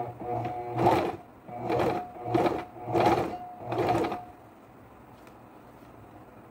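Electric sewing machine stitching in about five short runs, its motor speeding up and stopping between each, then falling silent about four seconds in.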